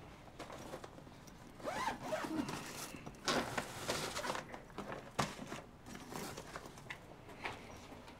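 A zipper rasping in several short pulls, followed by a few sharp clicks.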